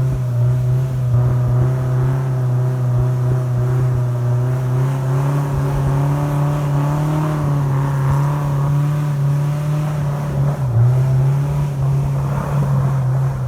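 Speedboat engine running steadily under way, heard from on board, a constant drone over a rushing noise of water and wind.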